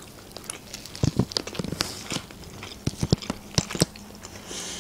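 People biting into and chewing McChicken burgers with a crispy breaded chicken patty: a run of irregular sharp crunches and mouth clicks.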